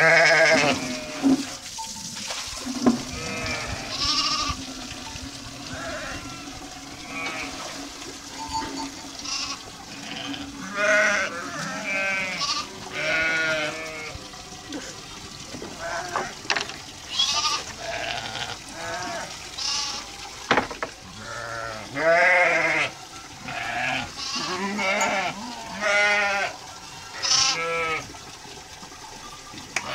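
A flock of sheep bleating over and over, many quavering calls overlapping, one every second or two, with a few sharp knocks among them.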